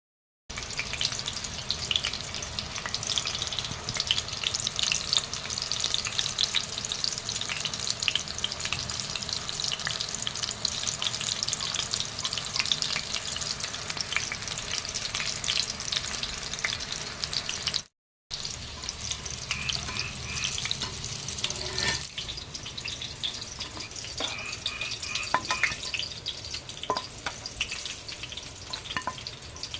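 Food frying in hot oil in a pan, a dense, steady sizzle full of small crackles. It breaks off abruptly about 18 seconds in, then carries on more quietly, with scattered light clinks and taps.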